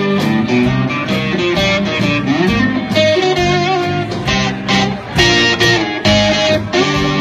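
Live rock band playing an instrumental passage of a rockabilly-blues song: electric guitar carrying the melody over bass guitar and drums with cymbal hits, no singing.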